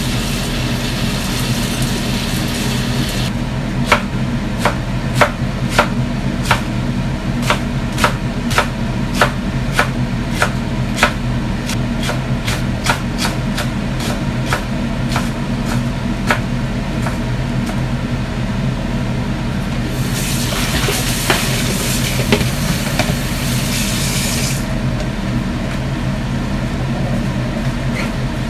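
Metal spatula clanking against a wok while stir-frying cabbage, about two strikes a second for some twelve seconds starting about four seconds in, over a steady low hum from the range hood fan. A loud hiss rises for about four seconds in the later part.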